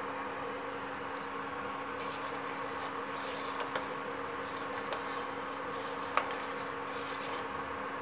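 Steady hum of an induction cooktop heating a stainless steel pot of milk, with a few light clinks of a steel ladle against the pot as the milk is stirred; the sharpest clink comes about six seconds in.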